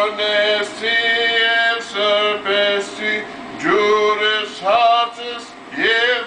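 A man chanting an Armenian church hymn, unaccompanied, in short phrases of held notes that slide up into pitch.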